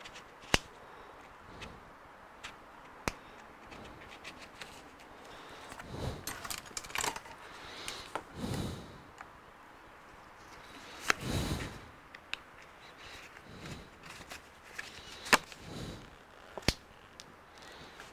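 Pry tools and gloved hands working under the cracked screen glass of a Surface Pro 9 tablet: several sharp clicks as the tool snaps against the glass and frame, with scraping and rustling in between.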